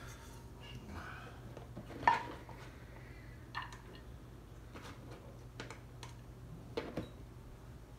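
A spoon clinking and scraping against a small pet food bowl as cat food is dished into it: a handful of sharp clinks, the loudest about two seconds in and a quick pair near the end.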